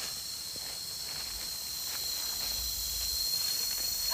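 Forest insects droning steadily at a high pitch, with faint crackles from dry leaf litter underfoot.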